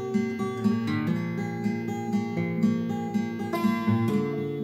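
Acoustic guitar played on its own, chords picked and strummed in a steady rhythm, changing chord about a second in and again near the end.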